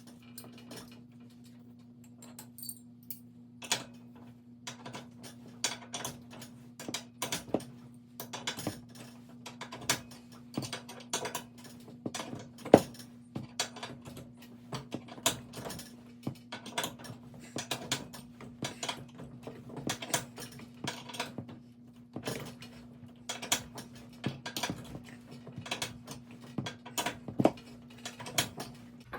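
Steel winding bars clinking and clanking in the cone of a garage door torsion spring as the new spring is wound up a quarter turn at a time, a few metallic knocks a second with a louder clank about twelve seconds in. A steady low hum runs underneath.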